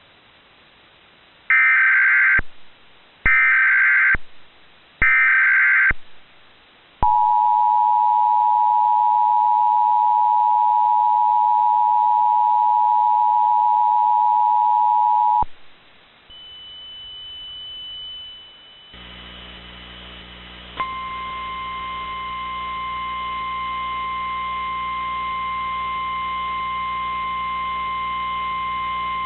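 Emergency Alert System tones: three short bursts of warbling SAME header data, then the steady two-tone EAS attention signal held for about eight seconds. After a short pause a hum comes up and the steady NOAA Weather Radio warning alarm tone starts about 21 seconds in. Together they signal a severe thunderstorm warning.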